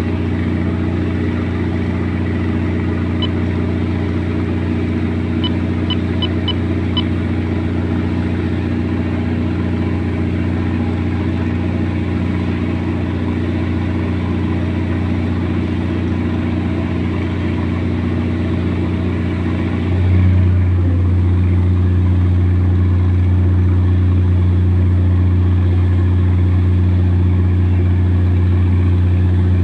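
A boat's engine running with a steady low drone. About twenty seconds in it grows louder and its tone shifts lower.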